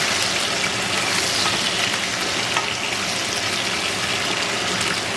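Rice frying in oil in a pan: a steady sizzle with small crackles.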